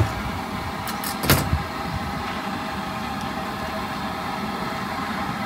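Steady mechanical hum, like an idling engine, with a short knock and a click about a second in.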